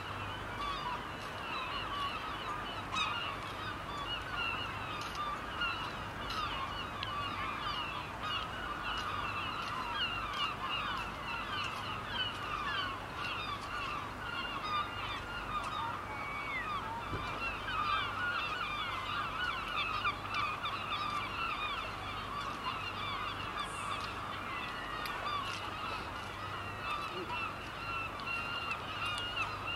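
A large flock of birds calling continuously, many short calls overlapping into a dense chatter.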